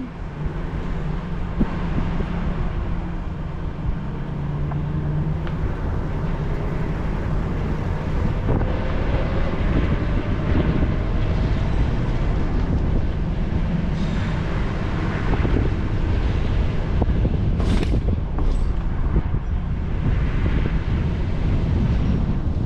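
Car driving along, its engine and tyres making a steady low rumble.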